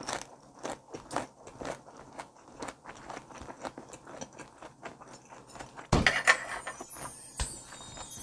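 Close-miked chewing of a perilla-leaf wrap of bone-in flounder sashimi with ssamjang, garlic and green chili: irregular crisp crunches and wet chews. About six seconds in, a sudden loud sound effect starts, with a falling sparkly sweep that fades over about two seconds.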